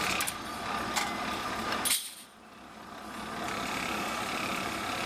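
Automatic packing clip-making machine running: a steady mechanical clatter with scattered metallic clicks. About two seconds in, a sharp click, then the noise drops away and builds back up over a second or so.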